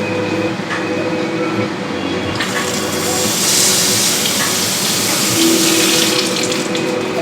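Kitchen tap running into a sink, the water's rush growing louder and hissier for a few seconds in the middle, over a steady low hum.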